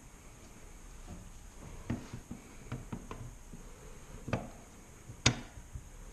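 Scattered clicks and knocks of small parts being handled while a pistol brace is fitted to an AR buffer tube, with one sharper click about five seconds in.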